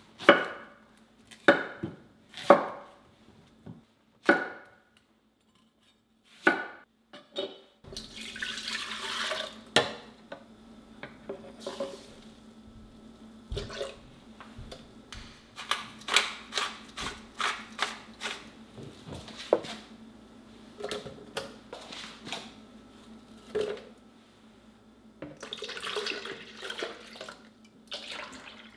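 A chef's knife chops through a pear and an onion on a wooden cutting board, six strokes in the first eight seconds. Then liquid is poured into a plastic blender jar twice, with small clicks and knocks of plastic cups and containers between the pours. A faint steady hum runs underneath.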